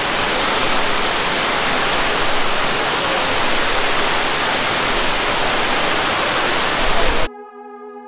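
Proxy Falls, a tall waterfall, rushing steadily with an even wash of falling water. Near the end the water cuts off suddenly and a held synthesizer chord comes in.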